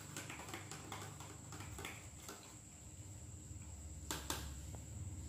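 A chopstick stirring water in a clear plastic cup, tapping the cup's sides in a quick run of light clicks, then two sharper taps a little after four seconds in.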